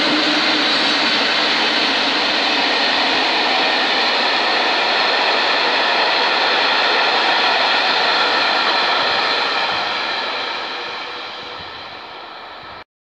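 Passenger coaches of a locomotive-hauled train rolling past, making a steady noise of wheels on the rails. The noise fades from about ten seconds in as the last coach goes by, then cuts off abruptly.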